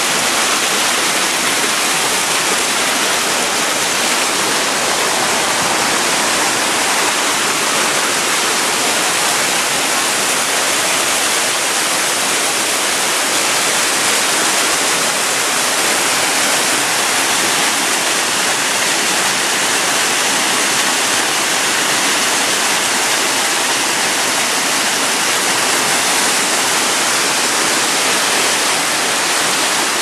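A small mountain waterfall pouring over rocks close to the microphone: a steady, loud rush of falling water with a bright hiss and no change in level.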